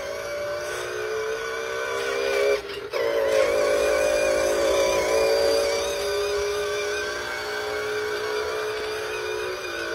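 Small electric motor of a remote-controlled toy scooter whining steadily as it drives, its pitch sliding a little as the speed changes, with a short drop-out about two and a half seconds in.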